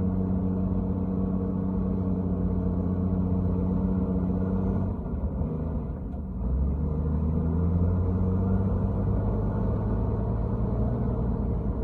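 Bulldozer's diesel engine running under load. Its note drops about halfway through, dips briefly, then settles into a lower, heavier drone.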